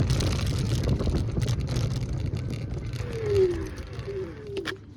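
Wind and road rumble from riding an electric scooter, slowly fading toward the end. A short falling squeal comes about three seconds in, and a sharp click just before the end.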